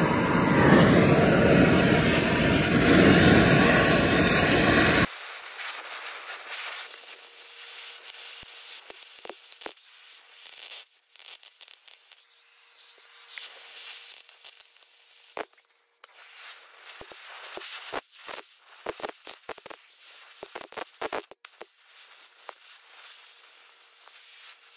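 Cutting torch burning a stuck cable remnant out of a steel winch drum's anchor hole. A loud, steady hissing roar for about five seconds cuts off suddenly, followed by a much quieter hiss with scattered crackles and pops of burning metal and slag.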